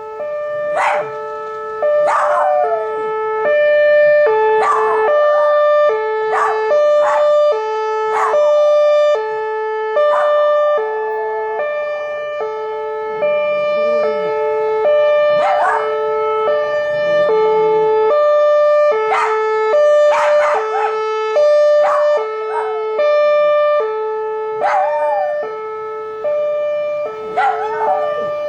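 Neighbourhood outdoor emergency warning siren under its monthly test, sounding a steady alternating two-tone high-low pattern. Over it a dog barks and yelps repeatedly, every second or two, in response to the siren.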